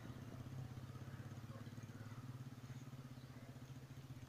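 Faint, steady low hum with a fast flutter.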